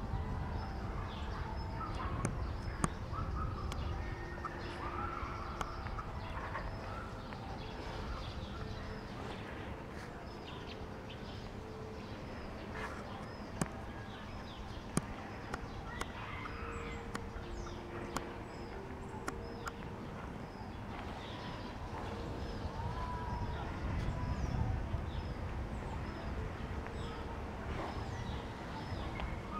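Outdoor ambience: small birds chirping over and over, with a low wind rumble on the microphone and a few faint sharp clicks.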